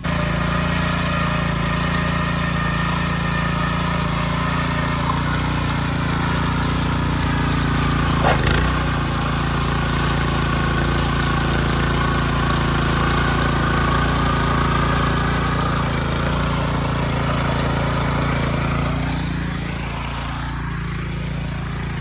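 Silkar motor tiller's small air-cooled engine running steadily under load as its rotating tines churn through the soil, with a brief louder knock about eight seconds in. The engine sound fades somewhat near the end.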